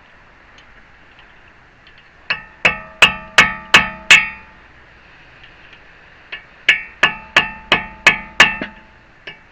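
Hammer blows on a rebar chisel driven against the staked collar of a Honda Fit axle nut, ringing metal clangs about three a second, in two runs of six and seven. The chisel is prying up the stake so the nut can be undone.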